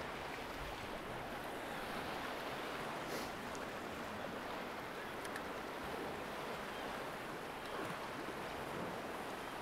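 Sea swell surging and washing against rocks, a steady rushing noise.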